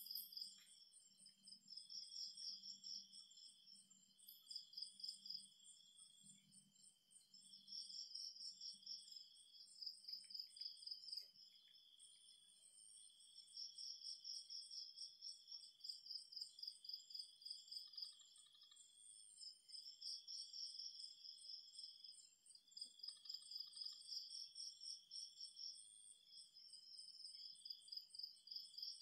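Faint night insect chorus: several insects trilling at once in layered, high-pitched rapid pulses that swell and fade every few seconds. A few short, two-toned calls are heard in the second half.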